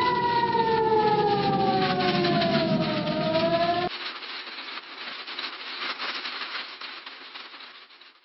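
Emergency alert siren tone: several pitches sounding together, sliding slowly downward, then turning back up before cutting off abruptly about four seconds in. A fainter hiss is left behind and fades out near the end.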